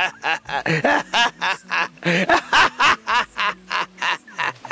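A man laughing loudly and heartily: a long unbroken run of 'ha-ha' bursts at about four to five a second.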